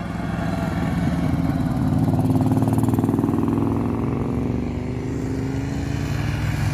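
A motor vehicle's engine running, its pitch rising over the first two seconds or so and then slowly falling.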